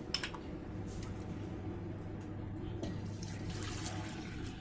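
A steel spoon clinks twice against a steel pan, then a thick milky china grass mixture is poured from the pan into a steel mixer-grinder jar, a soft liquid pour near the end, over a low steady hum.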